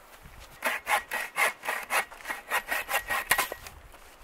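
Bow saw cutting dead wood in quick back-and-forth strokes, about four or five a second, starting under a second in and stopping after about three seconds.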